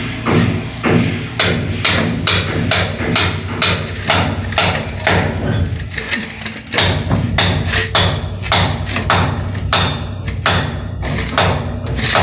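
Background music with a steady percussive beat, about two beats a second, over a held low bass.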